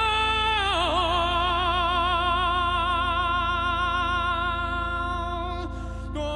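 A high, wordless singing voice wavers in pitch, then holds one long steady note over a low steady drone; the note breaks off near the end and a new one starts.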